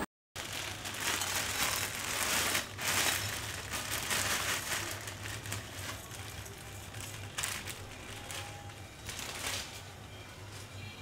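Plastic packet crinkling and dry lachha semai (fine fried vermicelli) rustling and crackling as it is poured out into a pan. The crinkling is busiest in the first half and thins out toward the end.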